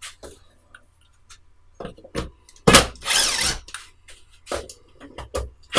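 Cordless drill-driver running in a burst of about a second, backing out the screws that hold the drawer slides on a home-built wooden CNC router. Short clicks and knocks come before it and after it, and a second burst starts at the very end.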